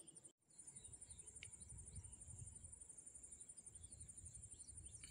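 Faint, steady high-pitched trill of insects, with a few short bird chirps and a low rumble underneath. The sound drops out for an instant just after the start.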